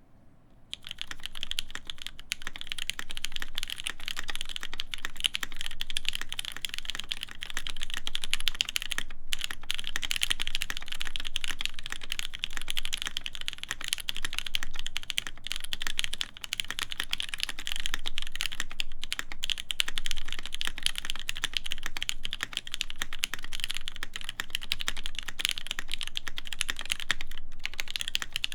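Continuous fast typing on a mechanical keyboard with lubed vintage Cherry MX Black linear switches, forged carbon plate and GMK keycaps: a dense patter of keystrokes that starts about a second in, with brief pauses twice.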